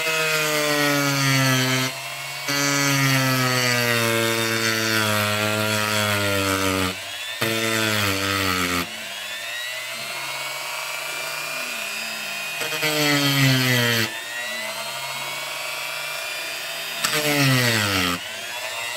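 Small handheld rotary tool running at low speed with a wire wheel, grinding solder mask off a circuit board. About five times it gets louder and the motor's pitch sags as the wheel is pressed into the board, then it eases back to a quieter, steady whine.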